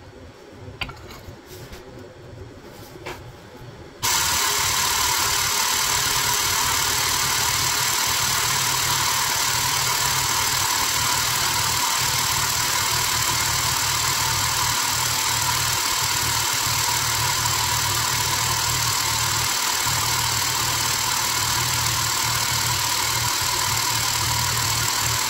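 A few light clicks and knocks, then a hydraulic press's pump switches on suddenly about four seconds in and runs steadily with a constant hiss and low hum, driving the ram down onto a tin can.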